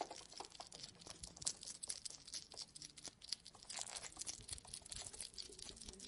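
Faint, irregular crackling and ticking as a hedgehog's paws wade through shallow water.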